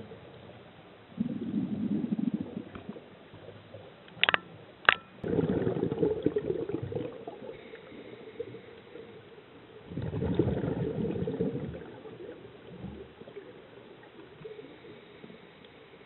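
Scuba diver's exhaled bubbles gurgling past the underwater camera housing in three bursts of a second or two each, a few seconds apart, with two sharp clicks between the first and second bursts.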